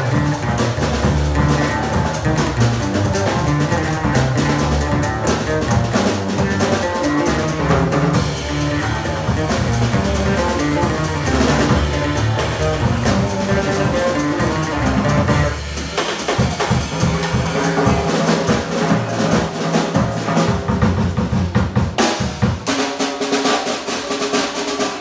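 Live jazz trio playing: drum kit, upright bass and a plucked string instrument. Near the end the bass falls away, leaving mostly the drums.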